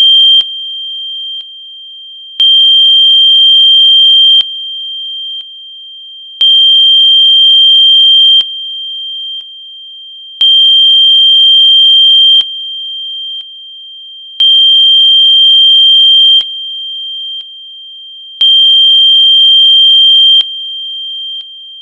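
Electronically generated high-pitched sine tone, a sound-therapy 'healing frequency', held steady and pulsing in level on a four-second cycle. Each cycle is about two seconds loud with faint added tones, then steps down in two stages, five times over.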